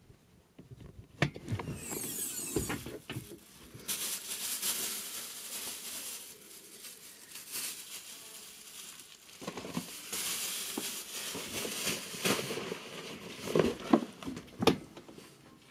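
Clear plastic bags crinkling and rustling as they are handled, with scattered clicks and knocks.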